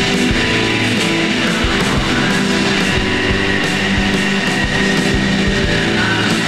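Shoegaze noise-rock song: a dense wall of fuzzed electric guitars over a steady drum beat.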